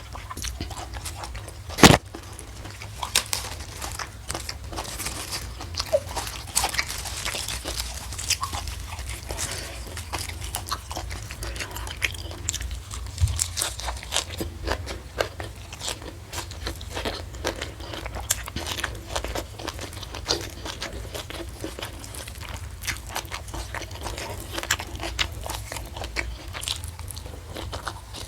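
Close-miked chewing and biting of crunchy food, fried fish and raw vegetables, with irregular crisp crunches and wet mouth clicks. One loud sharp crunch comes about two seconds in.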